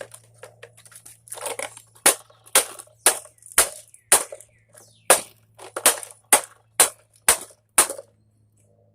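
Plastic housing of an air mattress pump being forced and struck to free its small motor: about a dozen sharp knocks, roughly two a second, after a second or so of softer scraping and rustling.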